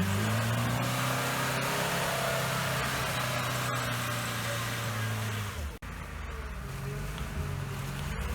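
Off-road vehicle's engine held at steady, raised revs. About six seconds in it breaks off abruptly and a lower engine note carries on.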